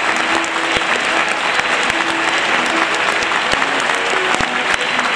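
Theatre audience applauding steadily, with sharp claps close by and held musical notes playing faintly underneath.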